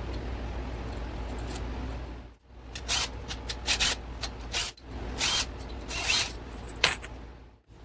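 Steady background hum, then a string of short metallic scrapes, rasps and clicks from hand tools and parts being worked on a motorcycle engine under teardown.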